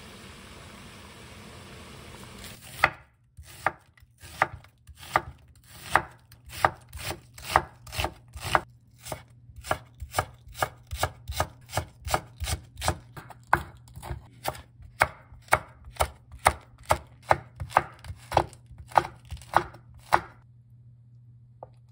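Kitchen knife slicing green onion and chilies on a wooden cutting board: a steady run of sharp knocks of the blade on the board, about two a second, starting about three seconds in and stopping near the end. Before the cutting starts, a pot of stock bubbling at a boil.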